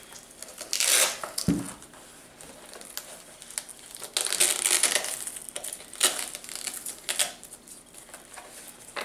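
Straps of a steel leg brace being pulled open and the brace handled: several short noisy rips and rustles, with a dull knock about one and a half seconds in.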